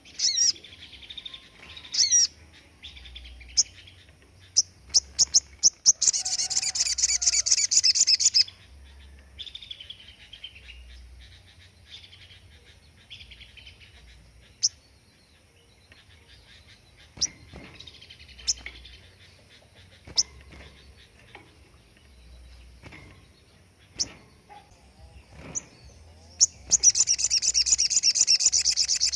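Sogon songbird singing: scattered short chirps and whistles, broken twice by a loud, rapid-fire trill lasting about two seconds, one about six seconds in and one near the end. These trill bursts are the 'tembakan' that bird keepers use as masteran to teach caged songbirds.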